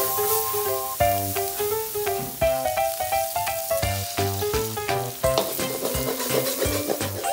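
Pork and onion frying in a wok, sizzling, with a metal spatula scraping and stirring against the pan. Background music with a melody and a steady beat plays over it.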